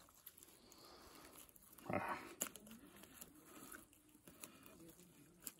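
Faint rustling and handling of a nylon cast net as fingers work a small fish out of the mesh, with one brief louder sound about two seconds in.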